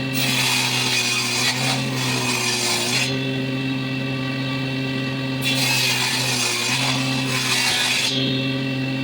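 A motor-driven saw runs steadily and makes two cuts into walnut wood, each about three seconds long with a short pause between. The motor's hum dips slightly in pitch under the load of each cut.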